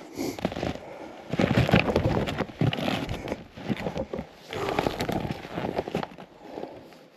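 Snowshoe footsteps crunching through deep snow in an uneven series of crunches.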